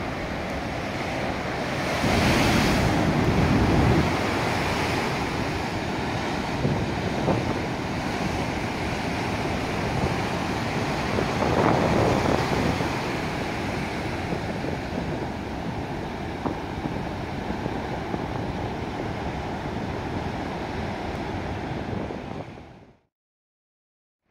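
Heavy surf breaking and washing up against a sand bank: a steady rush with louder surges about two seconds in and again near the middle, with wind on the microphone. The sound fades out to silence about a second before the end.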